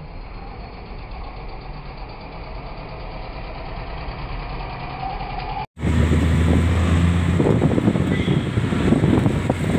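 Engine and road noise heard from inside a moving vehicle, fairly quiet at first. About six seconds in it cuts abruptly to a louder stretch of the same kind of ride, with a strong low engine hum and heavy rumble.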